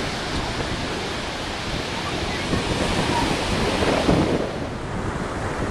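Ocean surf washing onto the beach, mixed with wind buffeting the microphone. The hiss of the surf thins out near the end while the wind rumble carries on.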